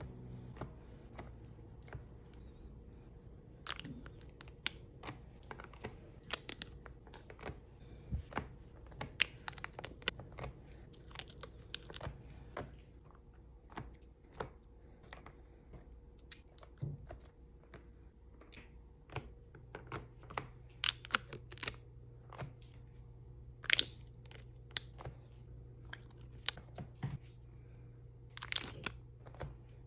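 Plastic seal lids being peeled off Himi jelly gouache paint cups one after another: short crinkling peels and small plastic clicks at irregular intervals.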